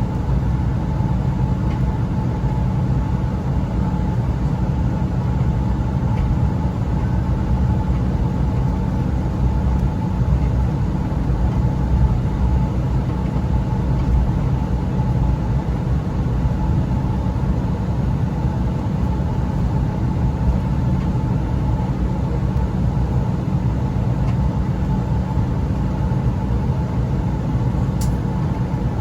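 Steady low cabin rumble of an Embraer E175 regional jet on the ground after landing, its engines idling, with a faint steady whine. A short click near the end.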